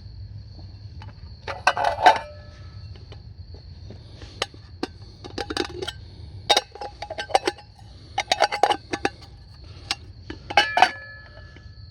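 Metal camp cookware clinking and knocking in repeated short clusters, with pots, lids or utensils ringing briefly after the louder knocks.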